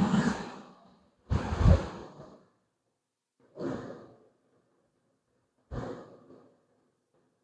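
A man breathing out in heavy, weary sighs, four in a row, each fainter than the last.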